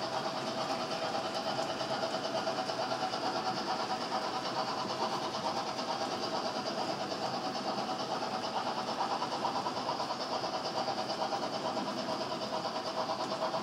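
HO-scale model trains running on the track: locomotive motors and long strings of tank wagons rolling over the rails, a steady running noise with a quick, even pulse.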